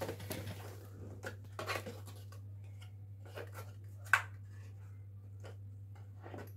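Perfume packaging being handled: scattered light rustles and taps, with one sharp click about four seconds in, over a steady low hum.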